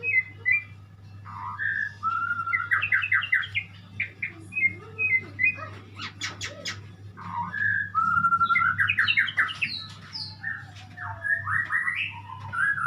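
A murai songbird (Copsychus, the shama and magpie-robin group) singing varied phrases of whistled notes and rapid repeated trills with short gaps, and a few sharp clicking notes about six seconds in. A steady low hum runs underneath.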